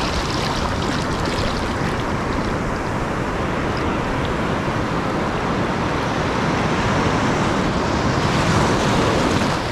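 Shallow surf washing in and out over sand: a steady rush of foaming swash water, a little louder near the end.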